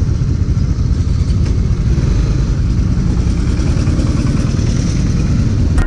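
Motorcycle engine running steadily while riding on the road.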